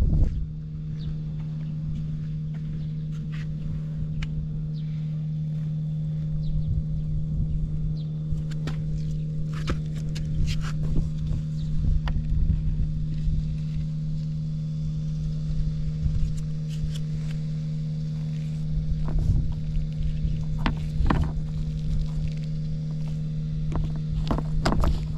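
Honda Cabina 50 scooter's small single-cylinder two-stroke engine running at a steady speed, with a few light clicks now and then.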